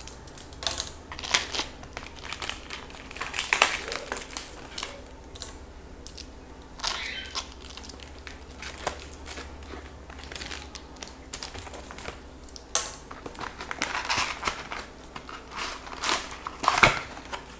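Small cardboard shipping box being handled, slit with a box cutter and pulled open: irregular crackling, rustling and tearing of cardboard.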